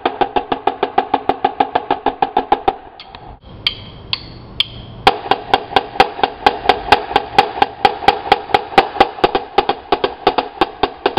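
Two marching snare drums played together in an even stream of sharp, high-pitched cracks, about five or six strokes a second. Playing breaks off about three seconds in, leaving a few light clicks, then starts again louder about two seconds later.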